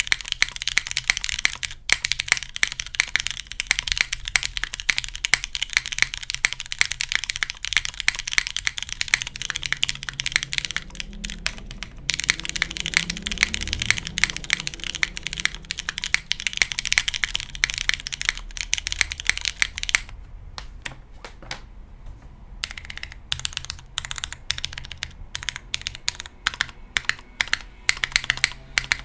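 Typing on a gasket-mounted R3 Kalam Kyohaku mechanical keyboard with an aluminium plate, lubed retooled Cherry MX Black linear switches and GMK keycaps, in fast continuous runs of keystrokes. About twenty seconds in, the typing thins out to slower, separate keystrokes.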